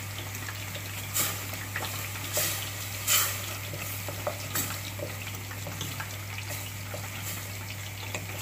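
A spoon stirring and scraping a wet onion masala in a stainless steel pot, with the masala sizzling softly. A few louder scrapes come about a second, two seconds and three seconds in.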